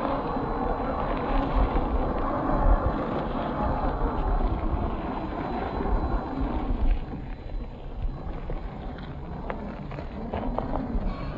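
A 1/10-scale RC crawler's 45-turn brushed 540 motor and geared drivetrain running as it climbs over rock and gravel, with a low whine that wavers with the throttle and wind on the microphone. The sound is slowed to half speed along with the footage. It is louder for about the first seven seconds, then quieter.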